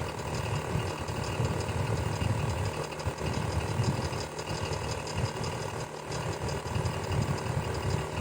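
Electric fan running steadily: a low hum under an even whoosh of moving air, with a fast, even mechanical rattle from the running fan.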